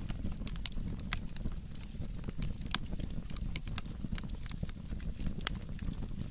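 Burning firewood crackling, with sharp irregular pops several times a second over a steady low rumble.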